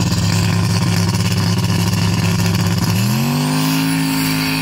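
Turbocharged LS V8 in a Ford Fairmont wagon held at steady revs on the drag-strip starting line, then launching about three seconds in: the engine note sweeps up and holds at higher revs under full throttle.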